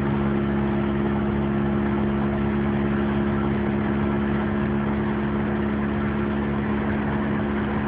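Truck engine and road noise heard inside the cab while cruising at a steady speed: a constant drone with a steady low hum that does not rise or fall.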